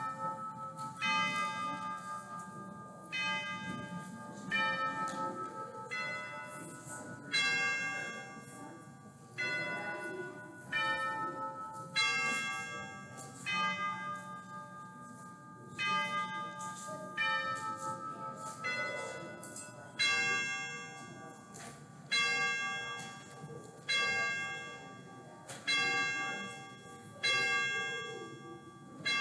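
Church bells ringing, one stroke about every one and a half to two seconds. The strokes fall on bells of a few different pitches, and each rings on and fades before the next.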